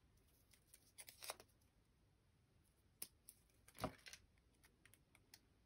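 Near silence with faint handling noise from peeling adhesive tape off a roll and moving paper pieces on a desk. There is a brief rustle about a second in, a light click at about three seconds, and a short scrape just before four seconds.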